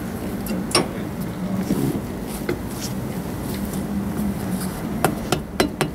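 Yanmar 3TNV88 three-cylinder diesel of a Thwaites 3 tonne swivel dumper idling steadily. Sharp clicks come about a second in and several more near the end.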